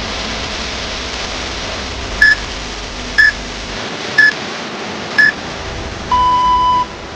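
Workout interval timer counting down: four short, high beeps one second apart, then one longer, lower beep that signals the switch to the next interval. A steady hiss runs underneath.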